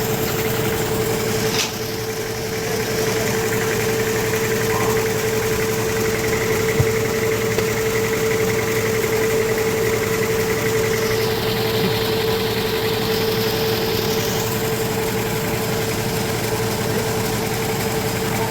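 Sawmill machinery running steadily: a constant mechanical hum with one steady tone over an even noise, and a brief click about a second and a half in.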